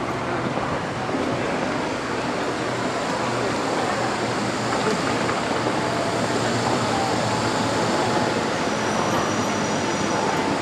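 Kitakyushu Monorail train on rubber tyres pulling into the station along its elevated concrete beam: a steady rolling noise, with a faint high whine in the second half.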